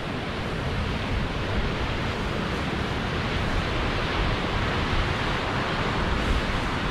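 Steady rushing water, an even unbroken roar with no rise or fall.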